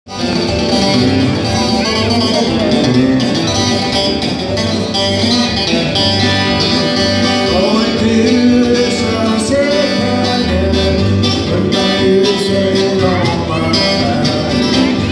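Live country gospel music played on an electric guitar and an electronic keyboard, with a man singing.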